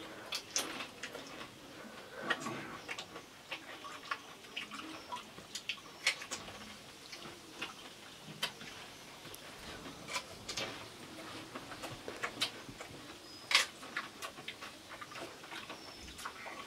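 Eating pani puri: irregular small clicks and cracks as crisp puri shells are picked up and crunched, with one louder click late on.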